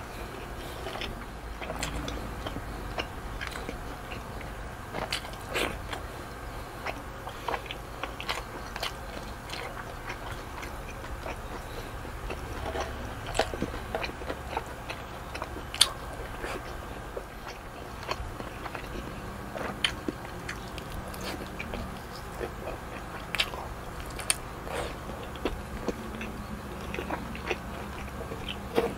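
Close-miked mouth sounds of a person eating pork adobo and rice by hand: chewing with irregular wet smacks and sharp clicks, over a steady low hum.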